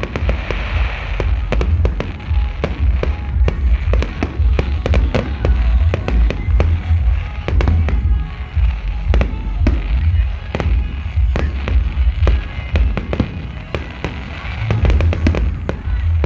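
Large fireworks display going off: a rapid, unbroken string of bangs and crackles over a heavy low rumble.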